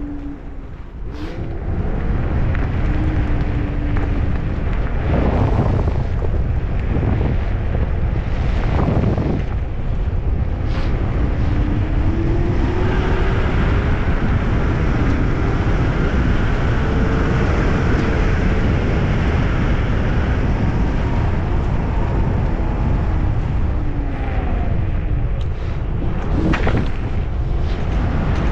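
An MS Energy X10 electric scooter ridden over asphalt: steady wind rush on the microphone and tyre rumble, with the electric motor's whine rising and falling as speed changes. There are a few sharp knocks along the way.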